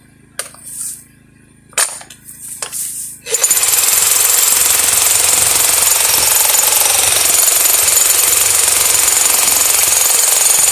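Electric jackhammer switching on about three seconds in, then hammering steadily at full power into rock. Before it starts, a few short knocks.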